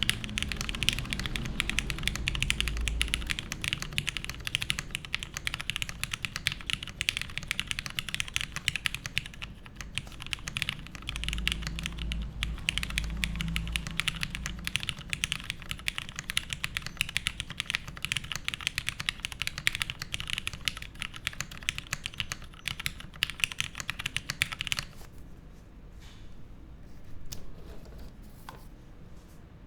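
Typing on a custom mechanical keyboard with lubed Cherry Hyperglide Black linear switches in an aluminium plate, capped with GMK keycaps. The keystrokes are rapid and continuous, then thin out to slower, scattered presses about 25 seconds in.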